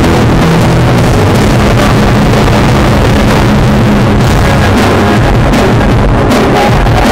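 Live band music with drums and keyboards, recorded so loud that it is overloaded and distorted.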